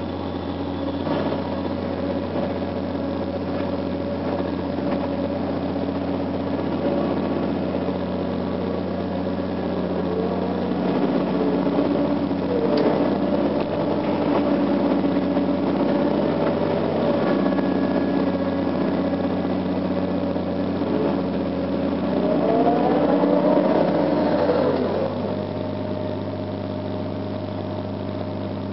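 Cat 345CL excavator's diesel engine and hydraulics working, heard from inside the cab while digging. The engine runs steadily, louder through the middle, with rising and falling whines as the boom and swing move.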